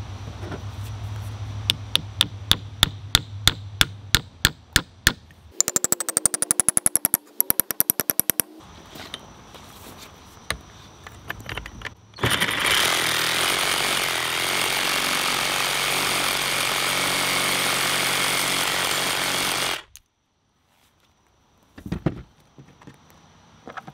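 Hammer blows driving a wooden wedge into the eye of a sledgehammer head, about two a second, then a fast run of taps. Then a reciprocating saw runs steadily for about eight seconds, cutting off the protruding wedge, and stops abruptly.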